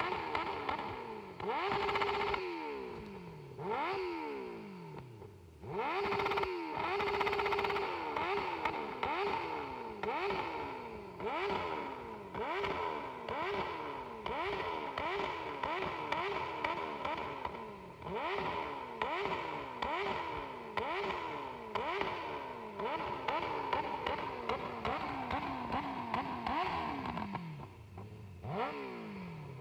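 Suzuki GSX-F inline-four engine at a standstill, revved hard over and over with its headers glowing red-hot: quick blips about once a second, each falling back, and the revs held at a steady high pitch twice.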